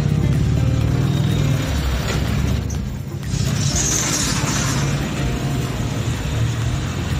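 Engine and road noise heard from inside a moving car, with music playing over it.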